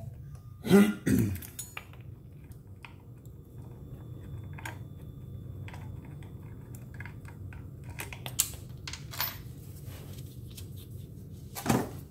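Small metal clicks and clinks of an Allen wrench and the brake caliper's mounting screws and washers as the screws are backed out of a scooter's disc brake caliper, with two louder knocks about a second in. A low steady hum sits underneath.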